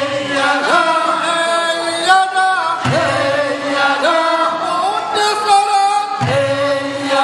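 A chorus of men's voices chanting a Korean fishermen's work song, in long held phrases with short breaks between them.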